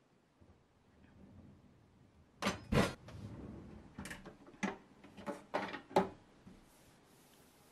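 Cookware and utensils knocking and clattering in a pull-out kitchen drawer as they are moved and fitted into place: a pair of sharp knocks about two and a half seconds in, then several lighter knocks over the next few seconds.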